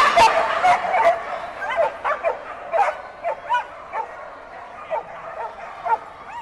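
Dogs at a flyball race barking, a rapid string of short, sharp barks about one to two a second, over the steady hubbub of a crowd in a large hall.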